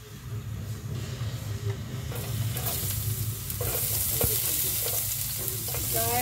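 Minced garlic scraped off a plate with a spatula into hot oil in a nonstick pan, sizzling as it starts to sauté. The sizzle swells about two seconds in and grows louder, with a few light clicks of the spatula.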